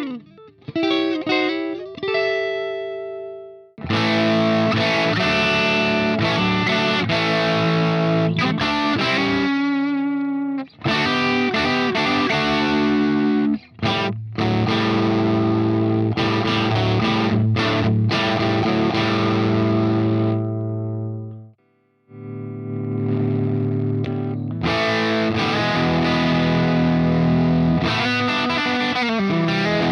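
Distorted electric guitar through a 1974 Marshall JMP Super Bass valve amplifier: a few picked notes, then heavily overdriven chords let ring, with short breaks between phrases.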